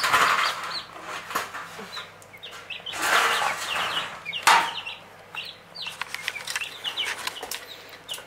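Broiler chicks peeping, with many short falling cheeps throughout. Rustling of newspaper being handled comes at the start and again from about three to four and a half seconds in.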